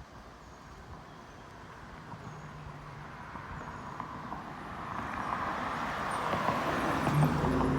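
A car approaching and passing close by: its road noise grows steadily louder and peaks near the end, with a low engine hum coming in at the loudest point.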